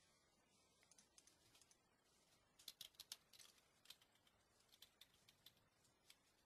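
Faint, scattered clicks of computer keys being tapped in small groups, with near-silent room tone between.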